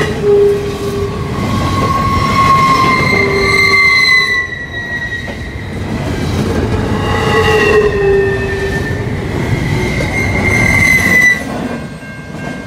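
Double-stack intermodal freight train's well cars rolling past, a steady rumble of wheels on rail overlaid by high wheel squeal in several tones that come and go and slide slightly in pitch. The rumble and squeal fall away near the end as the last car goes by.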